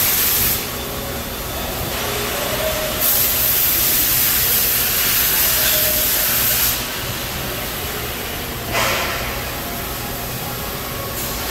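Fanuc RoboDrill Alpha T10-C vertical machining center running with a steady hum, broken by loud hissing bursts: a brief one at the start, a long one of nearly four seconds from about three seconds in, a brief one about nine seconds in, and another starting near the end.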